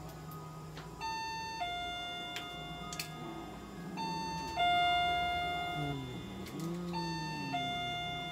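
An electronic two-tone chime, a higher note falling to a lower one, sounding three times about three seconds apart.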